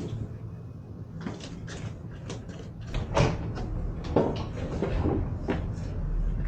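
A run of short knocks and bumps from cardboard boxes being picked up and handled, the loudest about three seconds in, over a low steady hum.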